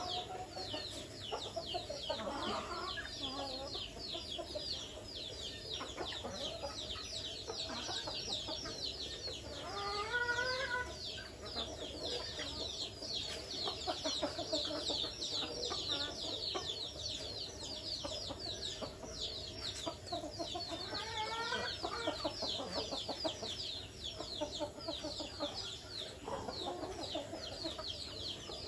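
Chickens clucking as they forage, with a louder rising-and-falling call series twice, about a third and about three quarters of the way through, over a constant chatter of quick, high, falling chirps.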